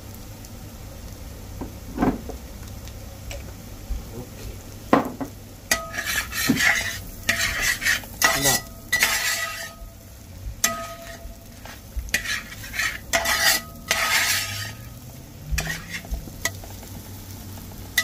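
Spatula stirring and scraping beef fry in a pan over a light sizzle, as the meat is fried dry at its final stage. A few single knocks come in the first seconds, then repeated scrapes with a faint ringing tone from about six seconds in.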